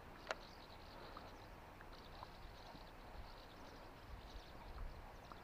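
Faint outdoor ambience with insects chirping in short, repeated bursts, and a single sharp click about a third of a second in.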